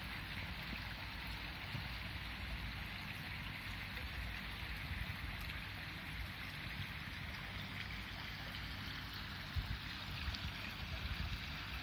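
Steady rush of running water in a koi pond, with a few brief louder sounds near the end.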